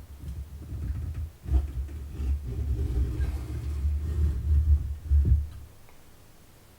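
Low rumble with a few faint knocks, stopping about five and a half seconds in.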